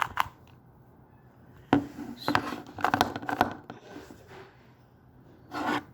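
Plastic Rubik's Cube layers being twisted by hand in quick turns, giving short clicks and clatters in a few bursts, the busiest run in the middle.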